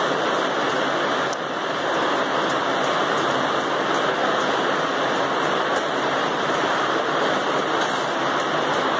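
A steady rushing noise that holds at one level, with no distinct strikes or footfalls standing out.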